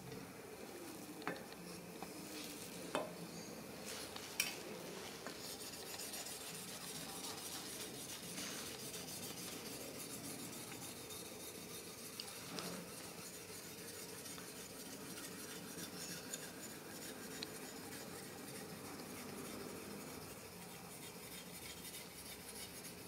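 Faint steady scraping of a steel katana blade being rubbed on sharpening and polishing stones, with a few light metallic clicks.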